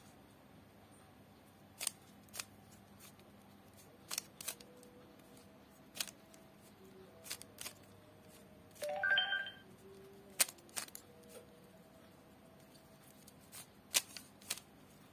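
Plastic 3x3 Rubik's cube being turned by hand: sharp, irregular clicks and clacks as its layers snap round, a few of them loud. A brief pitched sound about nine seconds in.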